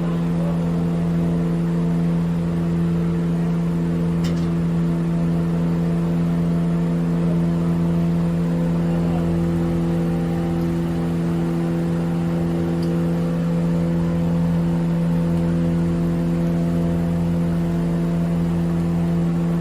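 A steady motor hum, one unchanging pitch with overtones, holding level throughout.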